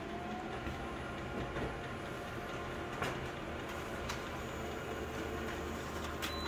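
Colour office copier running a print job: a steady mechanical whirr as the sheet feeds through, with a few sharp clicks, about three seconds in, again a second later and near the end.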